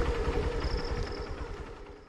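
Motorcycle engine running with a steady low rumble, fading out toward the end.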